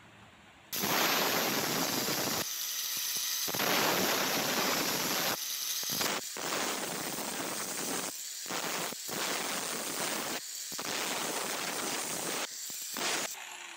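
Handheld angle grinder with a cut-off disc cutting through steel plate. It starts about a second in and runs with several brief breaks.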